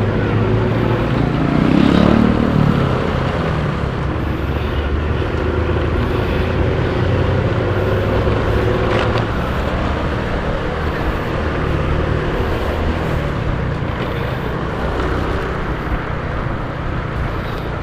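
ALS intercity bus engine and exhaust running continuously, with an exhaust note that sounds like snoring. It swells to its loudest about two seconds in, then runs steadily.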